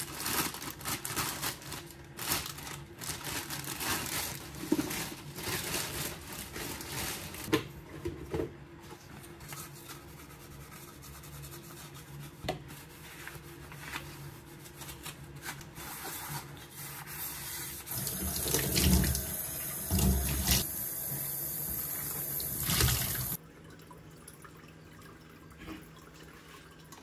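Plastic parts of a pet water fountain being rinsed and scrubbed by gloved hands in a stainless steel sink, with water splashing and parts clattering. Near the end the tap runs hard for about five seconds and stops suddenly. Then the reassembled fountain's pump hums steadily while water trickles over its flower-shaped top.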